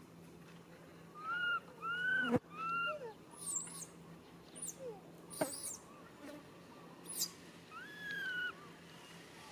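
Baby monkey calling for its mother: three short arched cries in quick succession, then a longer one near the end, over high thin chirps and two sharp clicks.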